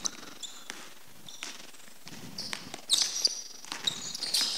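Basketball dribbled on a hardwood court, with sneakers squeaking on the floor as the players shift and cut. The squeaks grow thick and frequent in the last second and a half.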